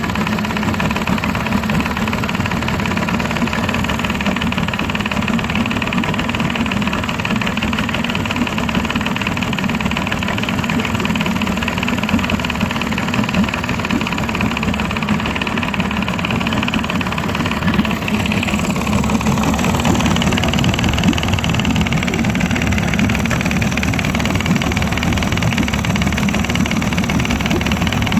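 Tomos T18 engine running steadily near idle, making a noise that its owner finds strange. About two-thirds of the way through, the engine note shifts and gets slightly louder.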